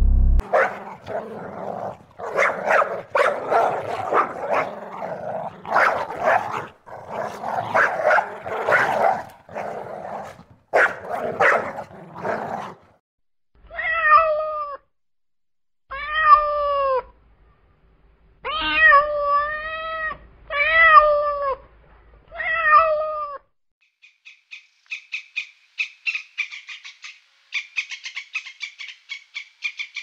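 A kitten meowing five times, short rising-and-falling calls a second or two apart. Before them comes a run of harsh, noisy sounds lasting about twelve seconds. After them, a fast high ticking chatter of many pulses a second starts and carries on.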